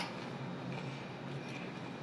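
Quiet chewing of a crunchy salad close to the microphone, soft and even with no sharp crunches.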